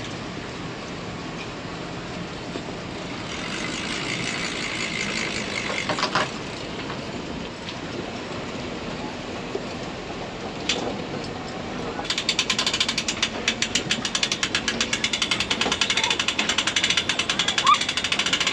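Boat trailer reversing slowly down a wooden-plank launch ramp, rumbling with an occasional knock. In the last third a fast, even run of rattling clicks sets in as the wheels cross the boards.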